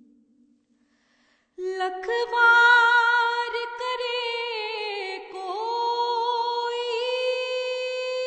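A woman singing a naat unaccompanied: after a short pause, she holds long, high, drawn-out notes with a wavering vibrato.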